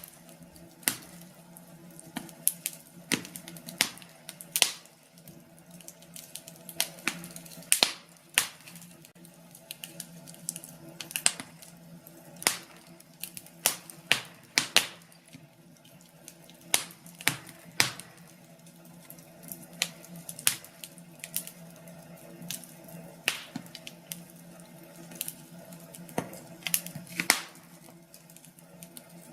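Wood fire in a fireplace crackling, with sharp pops and snaps at irregular intervals over a faint steady low hum.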